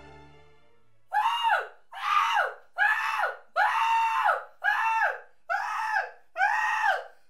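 A young man screaming in a run of seven short, high yells about a second apart, each dropping in pitch at its end. Orchestral music fades out just before the first yell.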